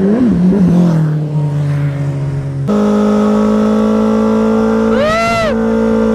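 Sportbike engine revving unevenly, then, after a sudden cut about two and a half seconds in, a Suzuki Hayabusa's inline-four held at steady high revs as it spins its rear tyre in a burnout. A brief rising-and-falling squeal cuts in about five seconds in.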